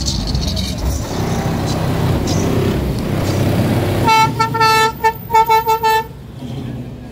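Vehicle horn honking: one long honk about four seconds in, then a quick run of about five short toots. Underneath is the low engine rumble of SUVs and pickups cruising slowly past.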